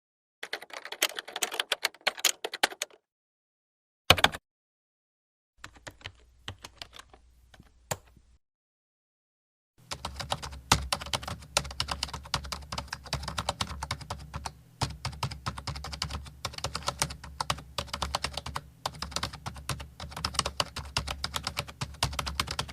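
Typing on a computer keyboard: several separate takes of rapid key clicks, divided by dead silence. A short flurry of keystrokes, a single brief burst around four seconds in, a fainter take over a low hum, then from about ten seconds on a long stretch of steady fast typing, also over a low hum.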